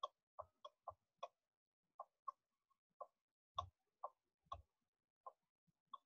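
Faint, irregular clicking and tapping of a stylus on a writing tablet while handwriting on a slide, about a dozen short clicks, a few with a dull low knock.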